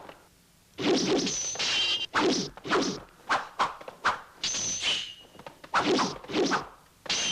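A rapid string of fight-style sound effects: sharp whooshes and whacks, several hits a second in quick runs. Some swishes carry a brief high whistle.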